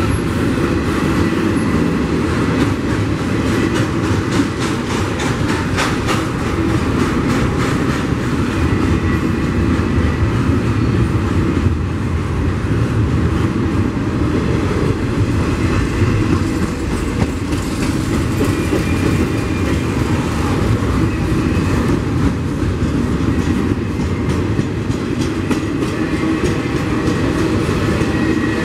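Double-stack intermodal container train rolling past close by: a steady rumble of the well cars' steel wheels on the rails, with runs of clickety-clack as the wheels cross rail joints.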